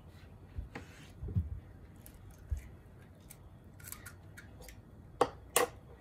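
An egg being cracked over a mixing bowl: light taps and small crackles of eggshell, with two sharp knocks about five seconds in.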